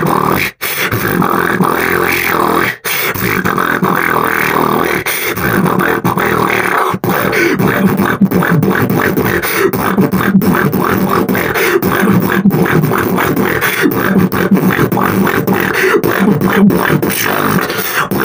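Beatboxing: a dense, continuous run of vocal percussion with kicks, snares and hums, broken by a few very short gaps in the first seven seconds.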